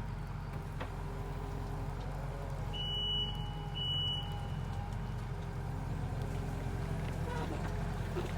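Skid steer engine running steadily, with two short high electronic beeps from the machine about three and four seconds in.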